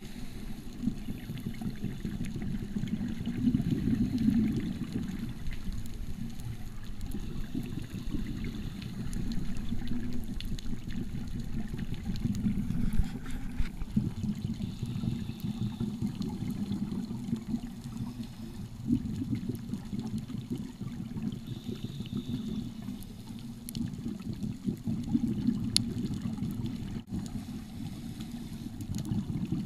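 Muffled underwater sound picked up through a camera housing: a steady low rumble of water that swells every few seconds with the gurgle of scuba divers' exhaled bubbles.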